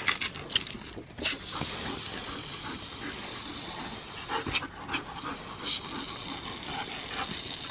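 A German Shepherd panting as it chases and lunges at a garden hose's water jet, over the steady hiss of the spray, with a few short sharp sounds here and there.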